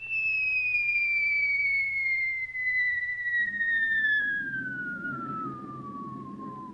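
Falling-whistle sound effect: one long whistled tone gliding steadily down in pitch, the film's cue for a man dropping from the aircraft. A low rumble joins about halfway through.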